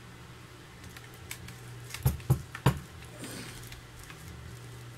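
A few sharp clicks and knocks from an angle grinder and its scouring pad attachment being handled, three in quick succession about two seconds in, over a low steady hum; the grinder is not running.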